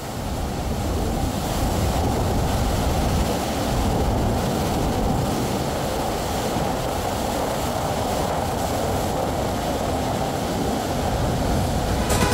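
Steady rushing roar of a waterfall, the Noasca falls, with low wind rumble on the microphone.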